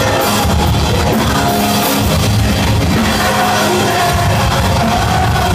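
A metalcore band playing live at full volume, with pounding drums and heavy guitars, heard through a phone's microphone, so the sound is low-quality.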